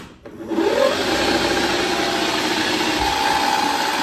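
Hangkai 48V 1200 W electric outboard motor spinning up with a short rising whine, then running at a steady speed with a whirring hum. It runs on a 52 V battery, with motor and controller still working after the controller overheated on 72 V.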